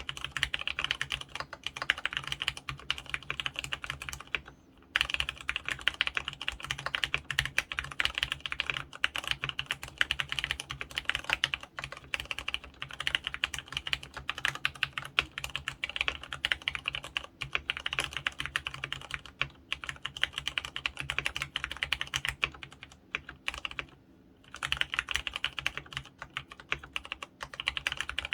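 Continuous fast typing on an mStone Groove F mechanical keyboard with fully lubricated Clarion brown 35g tactile switches: a dense stream of keystroke clacks, with two brief pauses, one about four and a half seconds in and one near the 24-second mark.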